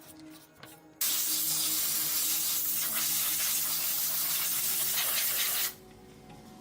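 A pressurised spray hissing in one steady burst of about four and a half seconds, starting and stopping abruptly.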